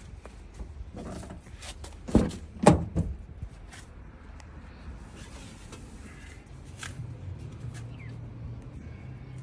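Clunks and knocks from the truck's window glass and door parts being handled, with two louder knocks a little over two seconds in and scattered clicks. A faint low hum sets in near the end.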